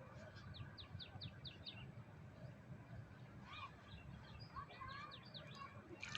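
Faint birdsong: a quick run of about six short high chirps, then a few more chirps and calls a couple of seconds later, over a low steady outdoor background.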